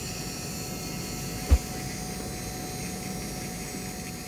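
Dental lab rotary handpiece running steadily, a cone-shaped diamond polisher spinning against a zirconia crown: an even hum of noise with a few steady tones. A single short, low thump about one and a half seconds in.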